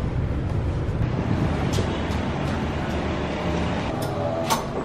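Steady low rumble of car cabin noise, with a few light clicks and a sharp tick near the end.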